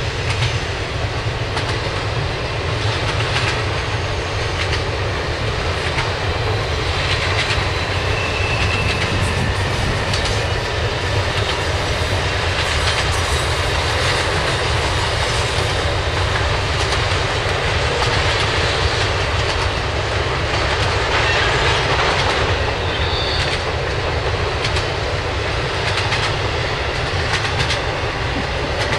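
Freight train cars rolling past at speed: a steady rumble with a rapid clickety-clack of wheels over the rail joints and a couple of brief high wheel squeals.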